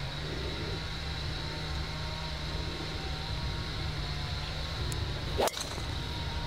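A golf driver striking a teed ball: one sharp crack about five and a half seconds in, over a steady low rumble.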